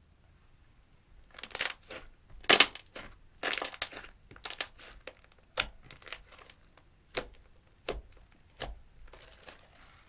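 Hands squishing and kneading clear slime with crushed eyeshadow mixed in, a string of irregular sticky crackling squishes and pops starting about a second and a half in.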